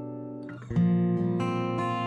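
Background music on acoustic guitar: a held chord fades out, then a fresh strum comes in under a second in, followed by picked notes.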